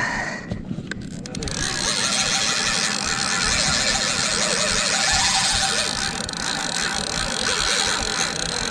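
PENN Battle II 5000 spinning reel cranked steadily against a hooked fish: a dense mechanical whirring of the reel under load that builds about a second and a half in.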